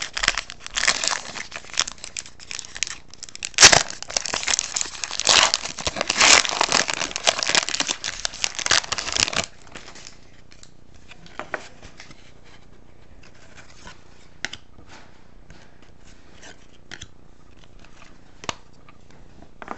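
Wrapper of a hockey trading-card pack being torn open and crinkled for about nine and a half seconds, with one sharp snap about four seconds in. Then it goes quiet apart from faint scattered clicks as the cards are handled.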